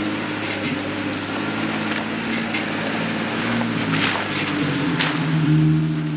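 Jeep Wrangler driving slowly past on a rocky dirt trail. The engine runs at low revs, its pitch drifting up and down, with a few sharp clicks from the tyres over loose rock. It is loudest near the end as it comes close.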